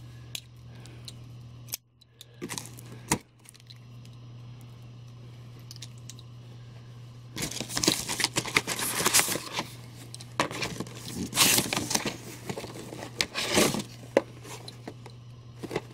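A taped cardboard shipping case being opened: packing tape tearing and cardboard flaps rustling. A few light knocks come first, then two stretches of tearing and rustling a few seconds each, the second starting about ten seconds in.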